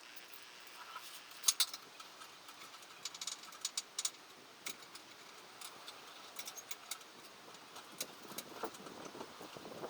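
Irregular light metallic clicks and clinks, like hand tools and small metal parts being handled, with the sharpest pair about a second and a half in and a cluster around three to four seconds.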